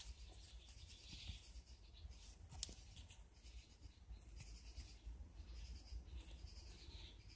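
Near silence: faint rustling of a foil sticker sheet being held and turned in the hands, with one light tick about two and a half seconds in, over a low steady hum.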